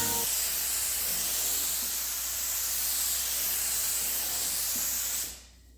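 Spray gun hissing steadily as it lays base coat paint onto a car roof, then cutting off about five seconds in.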